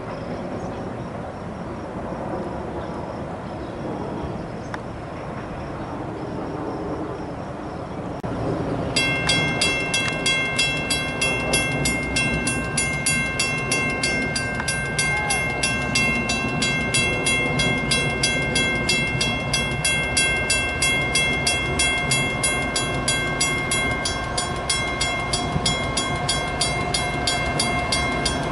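Freight train with a diesel locomotive and loaded tank cars approaching with a steady low rumble. About nine seconds in, a grade-crossing warning bell starts and keeps ringing with a steady, rapid, rhythmic dinging that is louder than the train.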